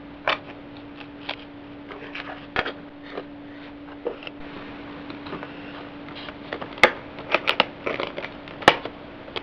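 Boxed headphone packaging being handled: scattered crinkles, taps and clicks, the sharpest about seven seconds in and again near the end, over a faint steady hum.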